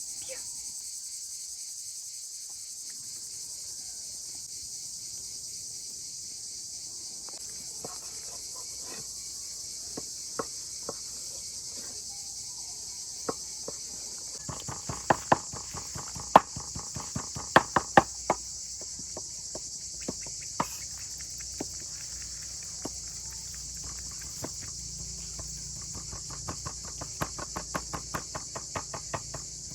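Steady, high-pitched chorus of crickets or other insects, with scattered sharp clicks and knocks, a loud cluster of them in the middle and a quick run of them near the end.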